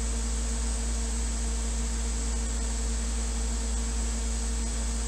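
Steady hum of a CNC machining center standing powered on, its fans and electronics running, with a low hum, a couple of steady mid tones and a thin high whine over an even hiss.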